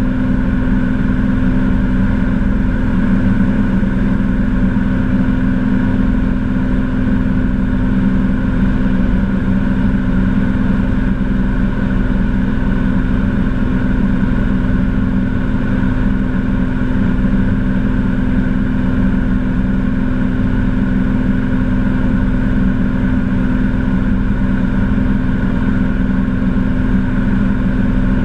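Cessna TTx's turbocharged six-cylinder Continental TSIO-550 engine and propeller at takeoff power, heard from inside the cockpit as a loud, steady drone through the takeoff run and climb-out.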